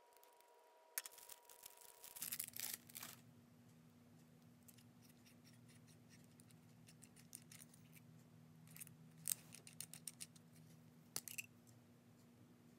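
Faint handling sounds of Jinhao x450 fountain pens: a brief crinkle of the thin plastic sleeve about two seconds in, then scattered small clicks and taps as the pen's cap, barrel and trim are handled.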